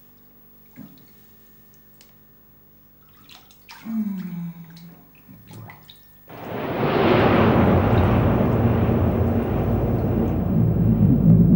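Bathwater in a tub: faint drips and small splashes, then about six seconds in a sudden loud, steady rush of muffled noise as the scene goes under the water.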